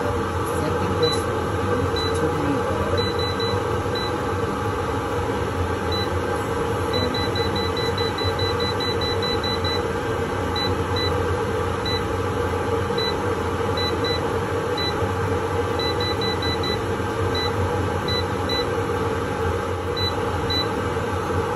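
Air fryer fan running steadily while its touch-panel buttons give a short high beep with each press: single beeps every second or so, and a rapid run of beeps from about 7 to 10 seconds in as the cooking time is stepped up.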